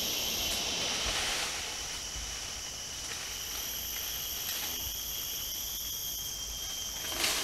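Tropical forest ambience: a steady high insect chorus over an even hiss, with a brief swell of noise near the end.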